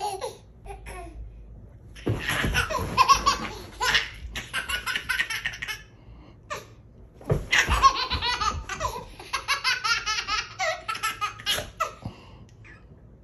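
A toddler laughing hard in two long bouts of rapid, pulsing giggles: the first starts about two seconds in, the second about seven seconds in and runs until shortly before the end.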